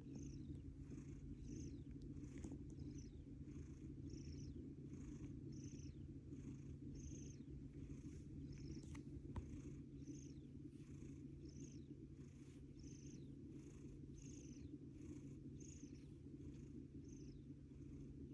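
A domestic cat snoring softly: a steady low rumble with a faint high wheeze repeating about once or twice a second.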